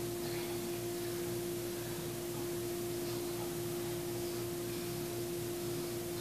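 A steady, even hum at one pitch over a constant hiss, with a few faint short chirps above it.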